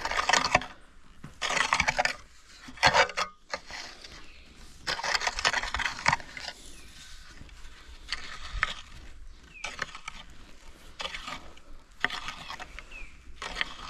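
Repeated gritty scraping and crunching in sand and stone, in about eight short bursts of under a second each.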